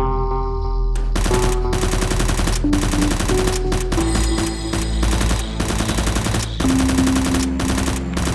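Rapid automatic gunfire sound effects, starting about a second in and running as continuous bursts, over background music with held notes.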